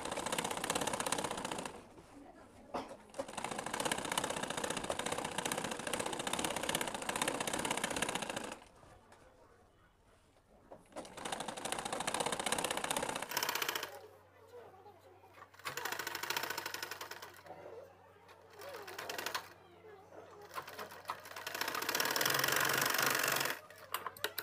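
Old Singer sewing machine stitching a skirt's waistband through the fabric and buckram, running in several stretches of rapid stitching with short stops between them, the longest about five seconds.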